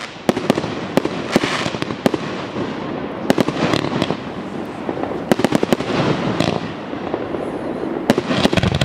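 Aerial fireworks display: shells bursting in a dense, irregular series of sharp bangs, with patches of crackling and hissing from the burning stars.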